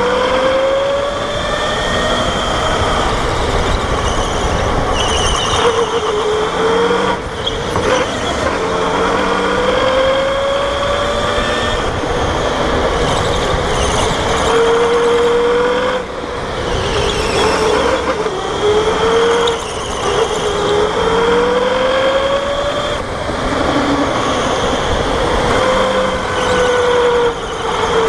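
Indoor go-kart's electric motor whining under the driver, its pitch rising steadily as it picks up speed and then dropping away, again and again through the laps, over steady wind and tyre noise.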